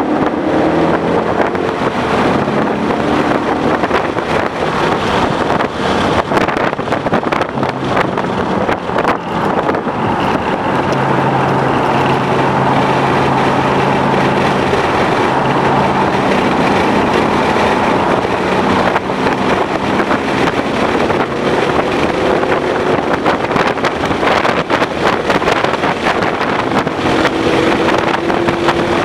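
Ford Mustang GT's 5.0-litre V8 driven hard on a race track, over heavy wind and road noise. The engine note rises with revs near the start and again near the end, and holds fairly steady through the middle.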